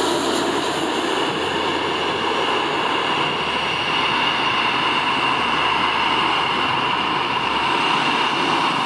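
Airbus A330-300 airliner's General Electric CF6-80E1 jet engines on landing approach: a steady roar with whining fan tones as the aircraft flies past and away toward touchdown, the high hiss thinning a little after the first second.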